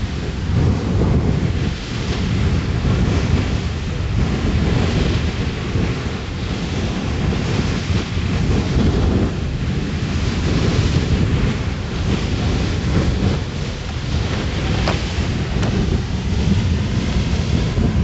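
Beehive Geyser in full eruption, its water-and-steam column jetting from the cone with a steady, deep rushing noise.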